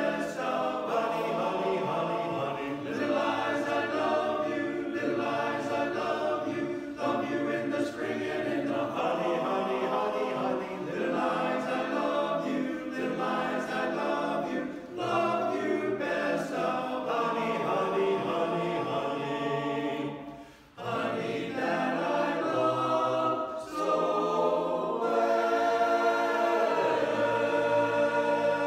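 Barbershop chorus singing a cappella in close four-part harmony. There is a short break about two-thirds of the way through, and near the end the chorus holds a long closing chord that then cuts off.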